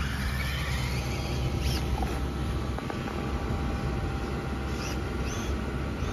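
Electric motor of a Losi Promoto-MX RC motorcycle whining as the bike pulls away, its pitch rising in the first second. A few short high chirps are heard later.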